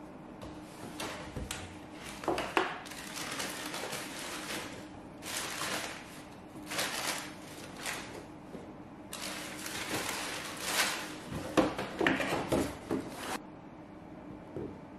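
Tissue paper crinkling and rustling and a cardboard shoebox being handled as a pair of sneakers is unwrapped and lifted out, in irregular bursts that stop about a second and a half before the end.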